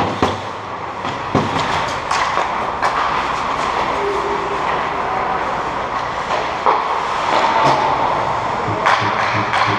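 Ice hockey play: skate blades scraping and carving on the ice, with scattered sharp clacks of sticks and puck over a steady rush of rink noise.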